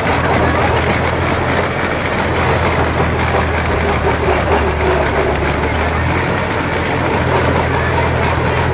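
Tractor diesel engine running steadily under load, driving a rear-mounted trencher that cuts a ditch and throws soil aside; the engine note shifts about six seconds in.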